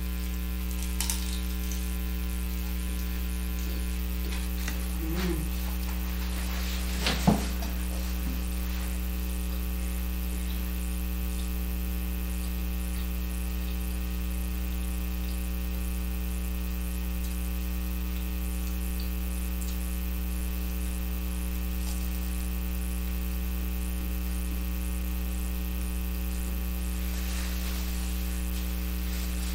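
Steady electrical mains hum running underneath throughout. A few brief sharp sounds rise above it, the loudest about seven seconds in, and a soft napkin rustle comes near the end.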